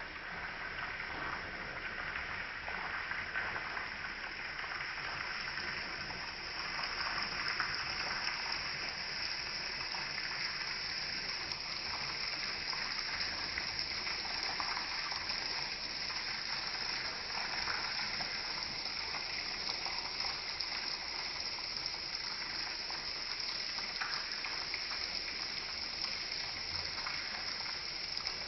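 Small stream flowing and babbling steadily, a constant splashing rush of water with small ripples.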